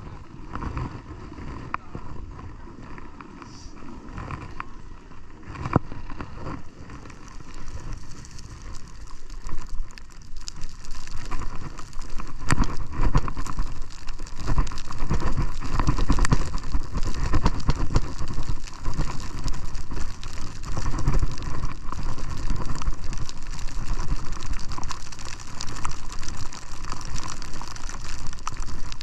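Wind buffeting a helmet camera's microphone and skis running over snow on a downhill run. The noise is quieter with a few knocks at first and grows louder and rougher about twelve seconds in, as the skier picks up speed.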